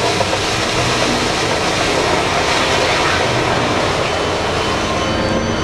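A giant mining dump truck tipping its load: rock and earth sliding out of the raised bed and pouring onto the ground in a steady, dense rush of noise.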